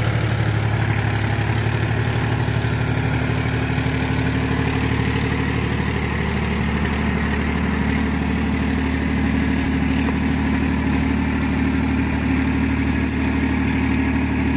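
Diesel tractor engine running steadily under load while it drives a Sonalika rotavator (rotary tiller) through paddy-field stubble. The engine note shifts slightly about two seconds in, then holds steady.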